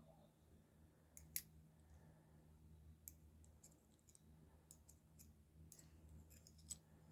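Faint, scattered metallic clicks and taps of a small handcuff key fumbling at a pair of handcuffs, trying to find and turn the lock, over a low steady hum.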